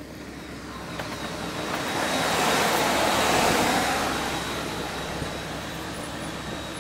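Six-axle ET22 electric locomotive running light past at close range. The noise swells to a peak about three seconds in and then eases off, with a faint steady high whine running under it.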